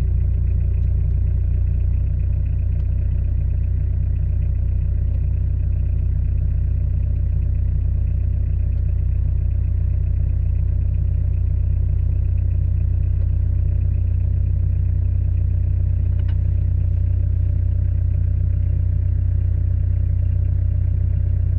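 Citroën BX engine idling steadily soon after a cold start, with a regular low pulse a little more than once a second. A light click sounds about 16 seconds in.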